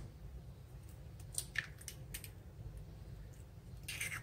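A raw egg being broken into a mixing bowl of minced chicken and spices: a few faint clicks of shell, and a soft squish as the egg lands on the mix.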